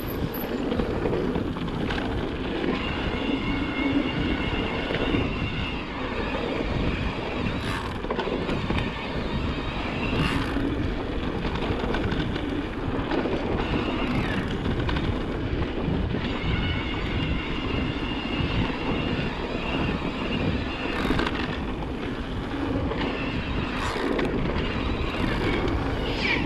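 E-mountain bike ridden over a dirt trail: wind rushing over the microphone with tyre and rattle noise. A high whir comes and goes, and a few sharp knocks sound as the bike hits bumps.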